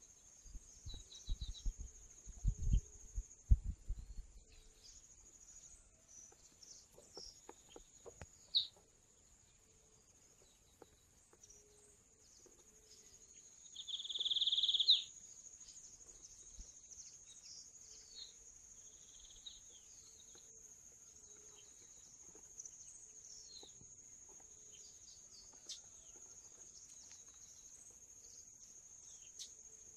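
Steady high insect buzz with scattered short bird chirps and calls; one louder bird call lasting about a second and a half near the middle. A few low bumps in the first four seconds.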